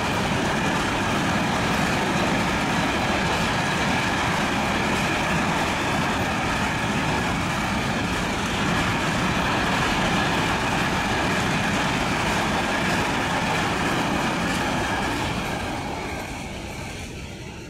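Container wagons of a long freight train rolling past on the rails, a steady noise of steel wheels on track that fades away over the last couple of seconds as the end of the train goes by.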